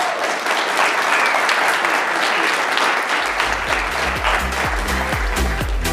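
Audience applauding. About three seconds in, electronic music with a steady bass beat comes in over the clapping.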